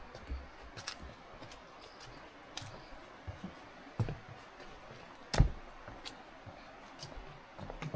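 A hiker's irregular footsteps and gear knocks on a mountain trail: scattered clicks and soft thumps, with a louder thump about five seconds in.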